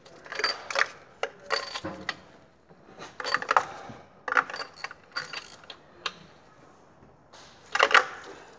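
Socket ratchet clicking in several short bursts while turning a spark plug in its well in the engine's valve cover, with the loudest burst near the end.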